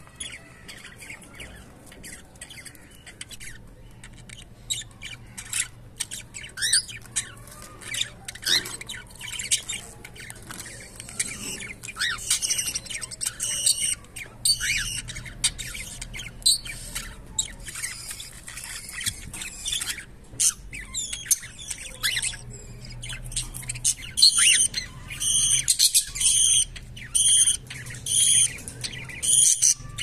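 Cockatiels chirping and calling in short whistled squawks. Over the last few seconds one bird repeats a loud call about twice a second.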